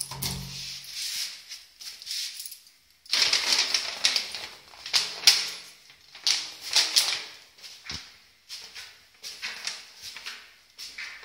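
Paper envelope being handled, crinkling and rustling in irregular bursts from about three seconds in.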